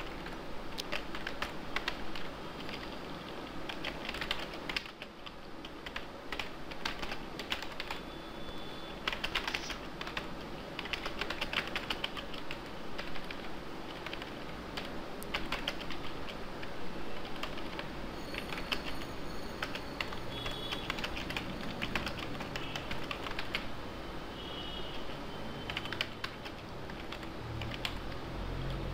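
Typing on a computer keyboard: a long run of key clicks in uneven quick bursts with short pauses between them.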